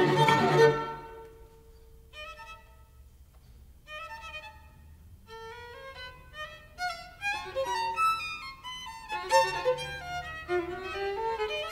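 String quartet playing: a loud, full passage breaks off about a second in, leaving one held note and a few short, sparse high notes. The instruments then come back in with short notes that grow denser and louder toward the end.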